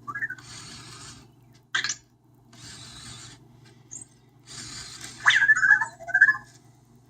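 Anki Vector robot's small motors whirring in three short bursts, then a run of squeaky electronic chirps.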